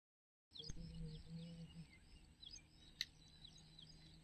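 Birds chirping: many short falling chirps repeating over a faint outdoor background. The sound cuts in about half a second in, and there is a single sharp click about three seconds in.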